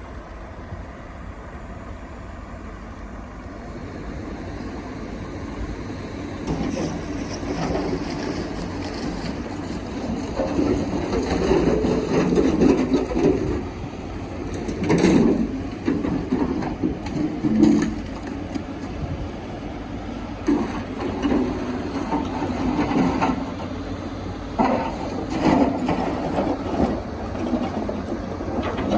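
Kobelco excavator working in rock: the engine runs under load, with scraping and several heavy clanks of the bucket against rock, the loudest about halfway through.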